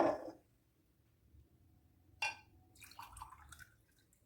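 Warm water poured from a glass into a blender jar in short splashes and drips, with a sharp glassy clink about two seconds in.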